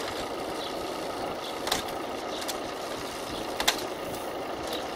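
A car engine running steadily at idle, with two sharp clicks about two seconds apart as a mechanic works on a road bike's drivetrain.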